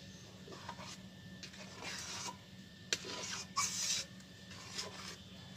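Long metal spatula stirring a milk and palm-pulp mixture in a large steel kadai: short scraping strokes of metal on metal, more frequent after about two seconds, over a steady low hum.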